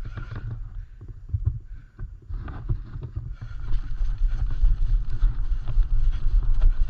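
Wind buffeting the microphone as a low rumble, with scuffing and rustling of movement over it. The noise grows louder and fuller about three seconds in.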